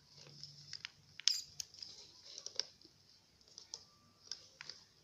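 Plastic wedges of a 48-piece Rubik's Snake twist puzzle clicking as they are rotated by hand: an irregular scatter of small sharp clicks, the sharpest about a second in.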